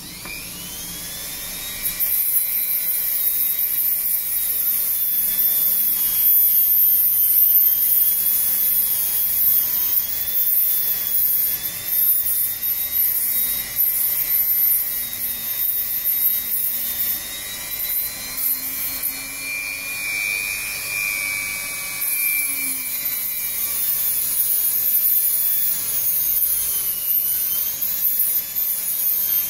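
Handheld rotary tool spinning up, then running with a high whine that wavers as its bit grinds against a metal headphone headband piece, with a rasping, abrasive noise underneath.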